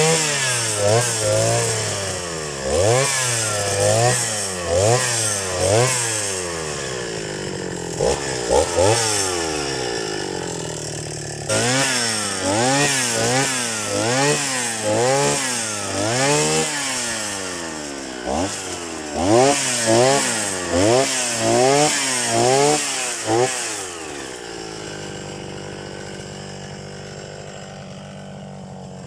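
Petrol grass trimmer (brush cutter) engine revving up and falling back over and over, about once a second, as it cuts grass, then settling to a steady idle near the end.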